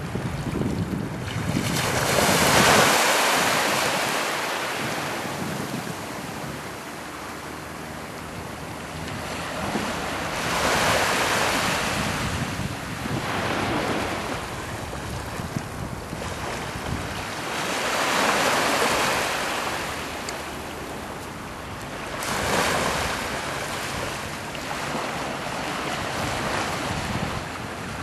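Small sea waves washing onto the shore, swelling and falling away every few seconds, with wind rumbling on the microphone.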